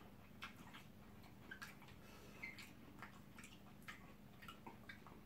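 Faint, scattered soft clicks and smacks of mouths chewing okra soup and eba, over a faint steady hum.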